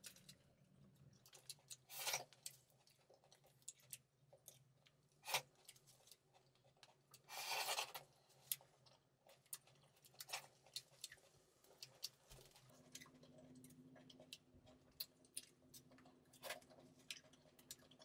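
Small round fruits being peeled by hand: scattered soft clicks and cracks of the thin shells, with two short rustling scrapes about two seconds in and near eight seconds.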